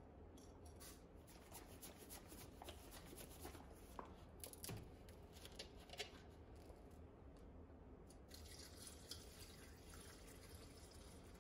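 Faint scattered ticks of a bottle being handled, then juice poured from a bottle into a blender jar, a faint steady trickle from about eight seconds in.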